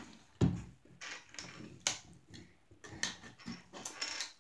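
Handling noise: a few irregular knocks and rustles, the loudest knock about half a second in.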